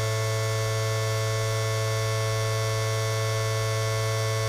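Steady electrical hum with one strong low tone and several fainter higher tones, from the Cessna 172's powered-up electrical system. The electric fuel pump is on and the diesel's glow plugs are preheating for a cold start, so the engine is not yet running.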